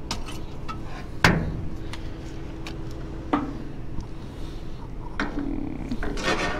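Handling noise from a reach-grabber tool poking through wooden boards and trash in a dumpster: a sharp knock about a second in, another about three seconds in, small ticks between, and a rustle near the end.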